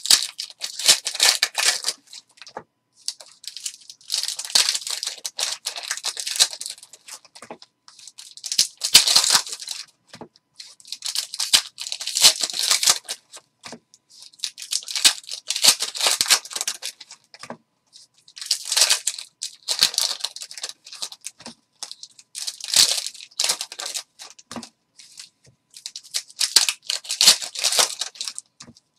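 Foil hockey-card pack wrappers being torn open and crinkled, in about eight short crackling bursts a few seconds apart.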